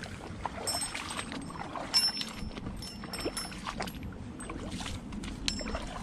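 Rustling and footsteps through long grass, with wind buffeting the microphone. A few short, high chirps and scattered light clicks come through, the clearest about two seconds in.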